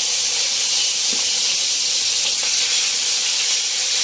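Food sizzling in hot oil in a cooking pan: a loud, steady hiss with a couple of faint ticks.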